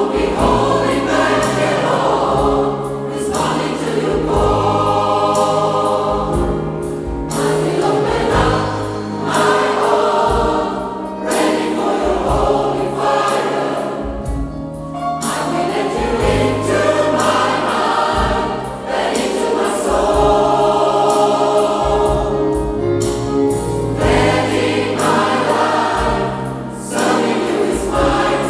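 Gospel choir singing in phrases of a few seconds each over an accompaniment with a steady bass line and a beat.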